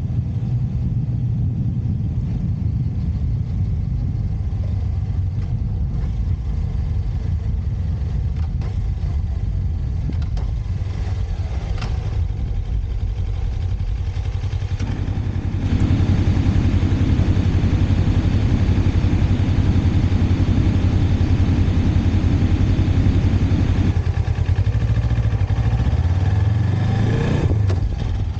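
Motorcycle engine running under way, with steady road and wind noise. About halfway through it gets louder as the bike pulls harder, eases back a few seconds before the end, then revs up in a short rising sweep.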